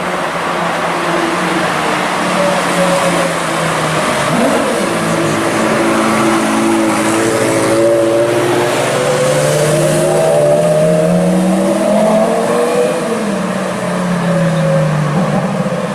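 Supercar engine revving and pulling away. Its pitch rises and falls several times, with the longest climb near the middle, over steady street noise.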